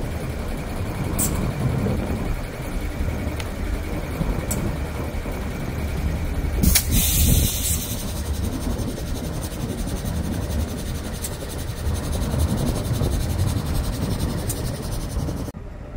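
The Ghan's NR class diesel-electric locomotives idling with a steady low engine rumble, with a burst of hissing about seven seconds in.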